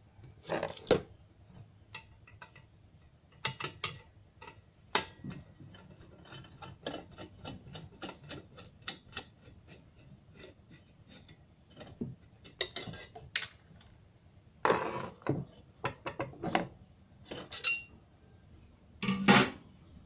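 Small metal clicks, ticks and clunks of a screwdriver and hands working on a microwave oven magnetron's sheet-metal shield while it is moved onto the replacement magnetron. Midway comes a run of quick, fairly even ticks at about three or four a second, and the loudest clunks come in the last few seconds.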